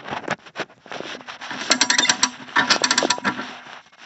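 Handling noises with scattered knocks, then two short bursts of very rapid mechanical clicking, a rattle like a ratchet, about two seconds in and again a second later.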